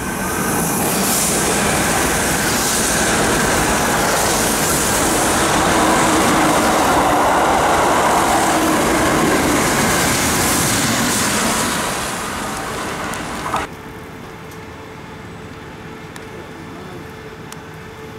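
Kintetsu limited express electric train passing through the station on the far track: a loud rush of wheels on rail and moving air builds about a second in, holds for about ten seconds and then tails off. It cuts off sharply at about thirteen and a half seconds, leaving a much quieter steady hum.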